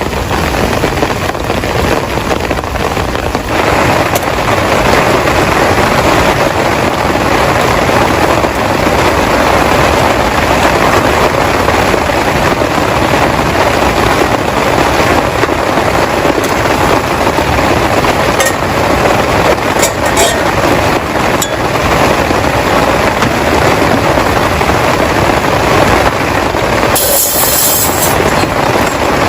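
Heavy rain falling hard, a dense, steady hiss, with a brief sharper high hiss near the end.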